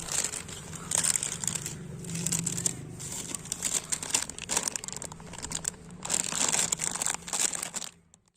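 Hands handling small parts: a dense run of crinkling, rustling and small clicks in uneven bursts, over a faint steady low hum, stopping near the end.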